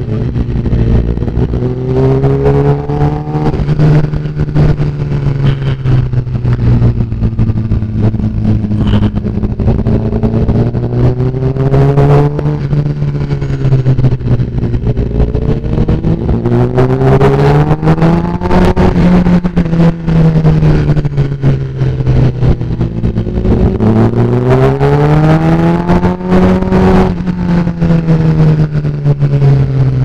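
Sport motorcycle engine running through an Austin Racing aftermarket exhaust while being ridden through bends. Its pitch rises and falls several times as the throttle is opened and eased off.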